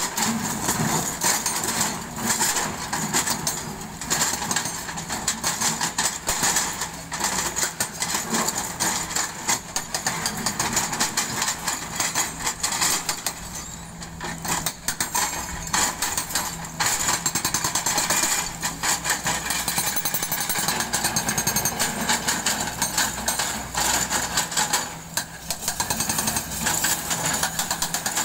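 Kobelco excavator's hydraulic rock breaker hammering into quarry rock in rapid blows, over the steady drone of the excavators' diesel engines. The hammering stops briefly twice, about halfway through and near the end.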